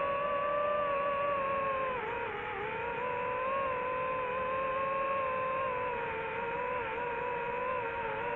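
FPV quadcopter's electric motors and propellers whining at a steady high pitch. The pitch dips and climbs back about two seconds in as the throttle changes.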